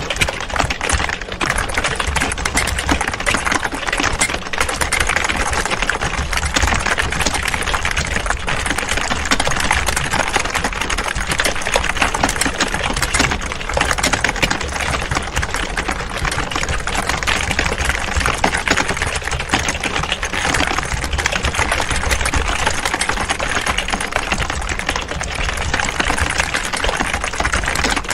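Many computer keyboards being typed on at once: a dense, unbroken clatter of overlapping key clicks, over a steady low hum.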